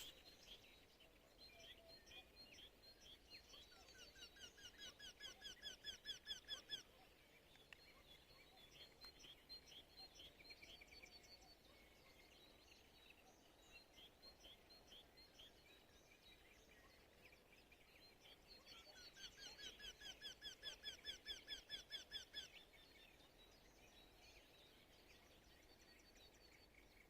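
Faint morning birdsong: a songbird twice sings a rapid trill of repeated notes, each about three seconds long, growing louder and then stopping abruptly. Short chirps from other birds are scattered in between.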